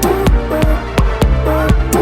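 Gqom electronic dance music from a DJ mix: heavy bass, sharp percussion hits and a short repeating synth figure.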